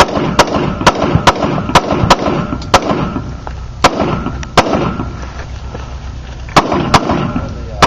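A string of about eleven gunshots from a competitor working through a 3-gun stage. The shots come in quick runs about half a second apart, with short pauses around three to four seconds in and a longer gap before two final shots near the end.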